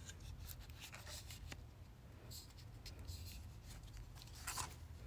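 Faint handling noise from a Logitech C920s webcam and its cardboard box being turned over in the hands: small clicks and a couple of brief rubbing scrapes, over a low steady hum.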